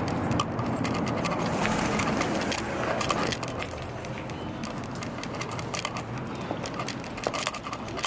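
Light metallic jingling and clinking, repeated irregularly throughout, over a steady low background noise that drops slightly about three seconds in.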